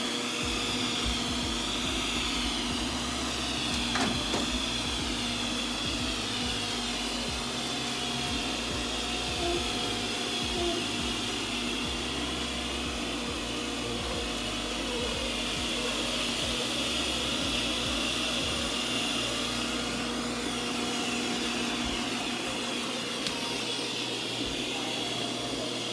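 Ecovacs Deebot N79W robot vacuum running with a steady high whir and a low hum, and a single click about four seconds in.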